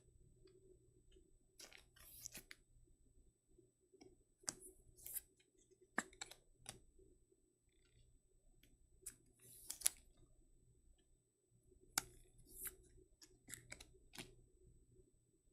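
Faint, irregular clicks and short plastic scrapes of trading cards being slid into rigid plastic toploaders and handled.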